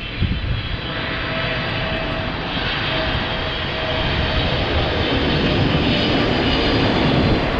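Boeing 777-300ER's twin GE90 turbofan engines heard from the ground as the airliner flies low on approach to land: a steady jet roar that grows slightly louder as the plane nears.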